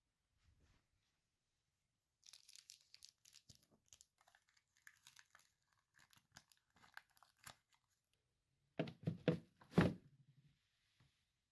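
A packet being torn open and crinkled for several seconds, followed near the end by a few louder knocks.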